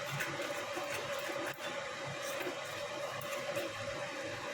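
Chicken gravy frying faintly in a pan over a medium gas flame, with a steady hum and an even hiss and no stirring.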